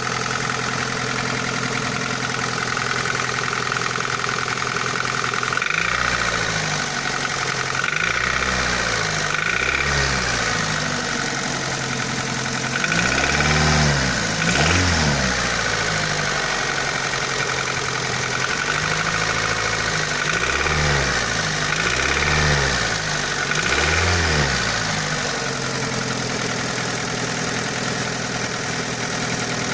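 Daihatsu Pyzar engine idling, then revved up and let fall back about eight times before settling to idle again. A knock from under the valve cover runs with it, which the owner is demonstrating.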